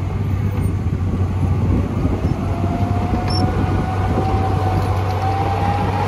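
Heavy diesel construction machine running steadily with a low hum, and a faint whine slowly rising in pitch from about two seconds in.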